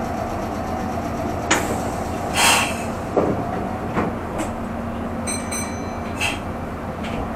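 Meitetsu express train running, heard from inside the leading car: a steady hum under several sharp knocks from the running gear, a short hiss about two and a half seconds in, and a brief high ringing a little past the middle.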